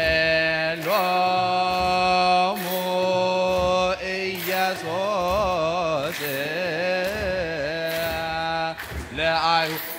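Ethiopian Orthodox wereb hymn chanted by a choir in unison. Long held notes alternate with a wavering, ornamented run in the middle, with brief breaths about four and nine seconds in.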